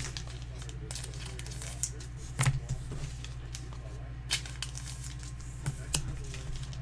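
Scattered small clicks and knocks of things being handled off to the side, with one of the clearest about halfway through, over a steady low electrical hum.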